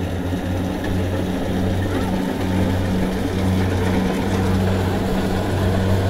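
Tracked rice combine harvester's diesel engine running steadily under load as it cuts through the standing rice, a continuous low hum.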